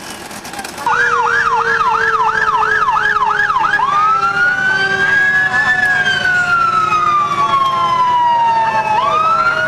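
Electronic emergency-vehicle siren starting suddenly about a second in with a fast yelp, about three up-and-down sweeps a second, then switching near the four-second mark to a slow wail that rises, falls over several seconds and rises again.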